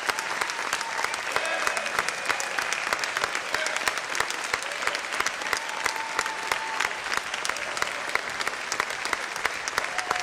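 Audience applauding, with dense steady clapping and a few voices calling out underneath.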